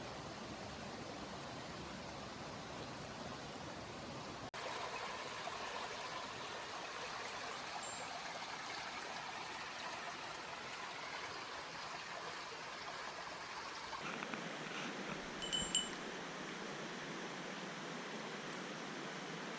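Mountain stream water rushing steadily, with a few brief high-pitched chirps about fifteen seconds in.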